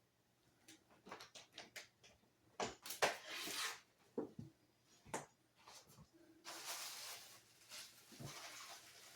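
Guitar packaging being handled and opened: a run of small clicks and knocks, then rustling that carries on from about six and a half seconds in.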